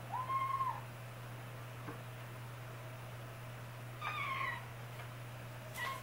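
Kitten meowing, scared to climb down from a cat tower: a short mew at the start, another about four seconds in, and a third beginning right at the end.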